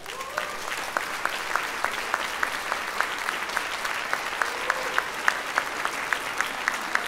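Audience applauding, with one nearby pair of hands clapping steadily about three times a second above the crowd.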